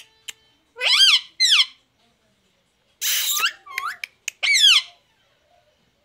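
Indian ringneck parakeet giving a series of short, high-pitched calls that rise and fall, with a harsh squawk about three seconds in.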